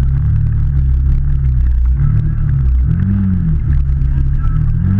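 Can-Am Maverick side-by-side's engine running steadily as it drives, with a brief rev up and back down about three seconds in.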